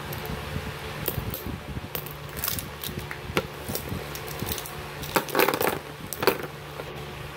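Plastic ballpoint pens clicking and knocking together, with taps and rustles of a cardboard box as they are gathered up and set on it. The handling is loudest a little after five seconds in. A steady electric fan hum runs underneath.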